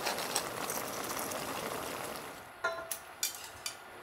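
Broth simmering and bubbling around clams steaming in a wok, a steady hiss. About two and a half seconds in, a ringing metal clink and a few lighter clicks, as tongs and pans knock together.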